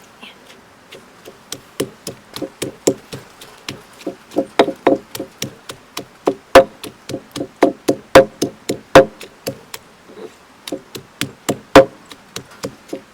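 Garlic being crushed by hand: a steady run of sharp knocking strikes, about three a second, some much harder than others.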